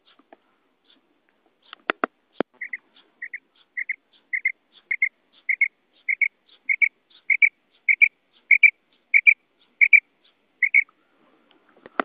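Female common quail calling: a steady series of short doubled notes, nearly two a second, beginning about two and a half seconds in. It is preceded by two sharp clicks.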